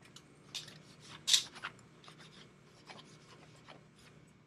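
Scattered light scrapes and clicks, with one louder, sharper scrape about a second and a half in, over a faint steady low hum.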